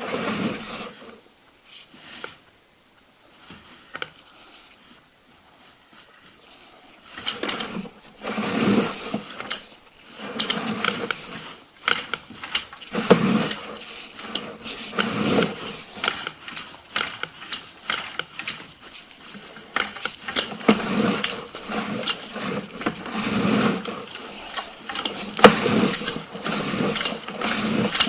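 Sewer inspection camera's push cable being fed through the pipe, clicking and rattling. A few faint clicks at first, then from about seven seconds in a busy run of clicks that swells every two to three seconds with each push.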